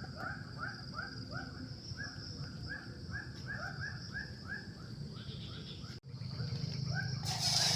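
An animal calling over and over in short arching notes, about three a second, over a steady high insect hum. A louder rushing noise starts near the end.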